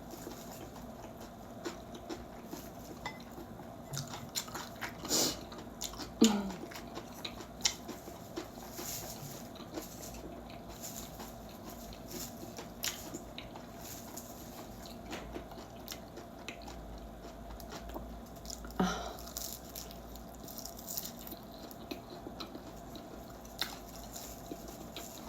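Close-up eating sounds: biting and chewing mouthfuls of rice with stir-fried laver, with small clicks of cutlery and dishes and a few louder knocks, over a faint steady hum.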